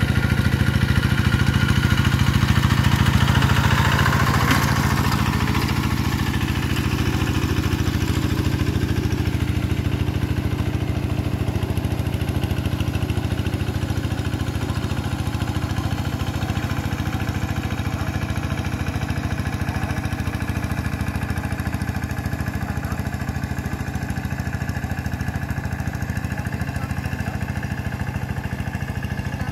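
Quick G1000 two-wheel hand tractor's engine running steadily at an even pitch as it tills a flooded rice paddy on cage wheels. It is loudest a few seconds in, then slowly fades as the tractor works away.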